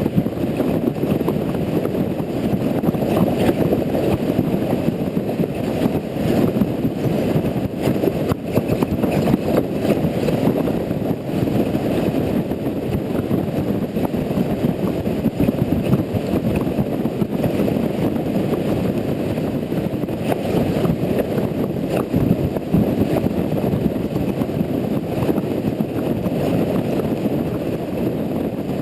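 Steady rush of wind and road noise on a camera riding on a motorcycle at speed, heavy and low-pitched, with no clear engine note standing out.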